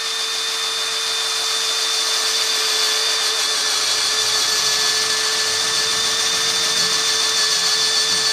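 Makita-replica cordless 18 V drill in its low-speed gear, boring a 26 mm wood auger bit into a block of wood. The motor whine holds one steady pitch under load, with the sound of the bit cutting; the drill keeps its speed and does not stall.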